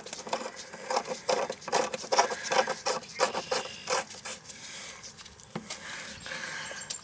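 Brass garden-hose coupling being threaded onto an outdoor faucet spout by a gloved hand: an irregular run of quick metal clicks and scrapes with glove rubbing, thinning out over the last couple of seconds.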